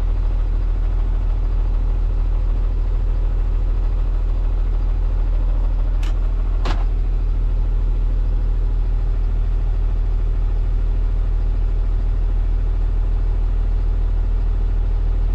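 Kenworth T270 tow truck's diesel engine running at a steady idle, heard from inside the cab as a constant low rumble. Two short clicks about six seconds in.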